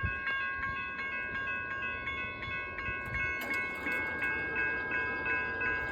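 Railroad grade-crossing bell ringing steadily, about three strikes a second, over the low rumble of a train.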